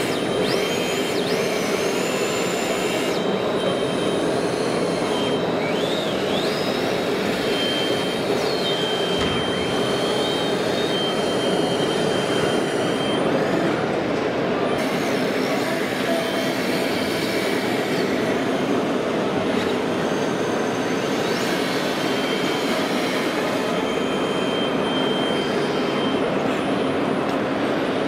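1:8 scale radio-controlled Caterpillar 988F wheel loader model working a dirt pile. Its motors whine in high thin tones that rise and fall in pitch, over a steady din of hall noise.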